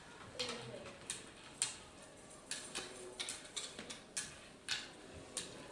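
Irregular sharp clicks, roughly two a second, some close together in pairs.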